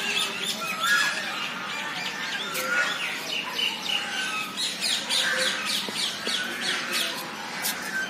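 Many caged birds calling at once: a dense run of short, overlapping chirps and squawks, mostly high-pitched, without a break.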